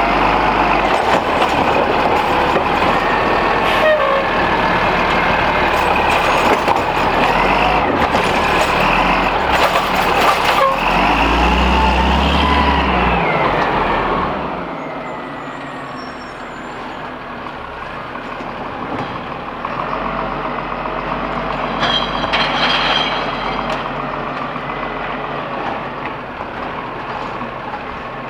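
Peterbilt 320 side-loader garbage truck's diesel engine running hard and revving up and down close by while its automated arm and packer work, with a short hiss of air about ten seconds in. After about fourteen seconds the sound drops to a quieter, steady engine of a garbage truck running farther off.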